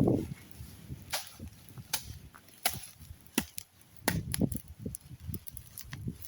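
Grass being cut by hand with a blade: a series of irregular sharp chopping strokes, with several close together about four seconds in.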